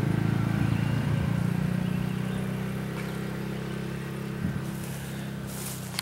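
Farm tractor engine running at a steady speed, slowly growing fainter.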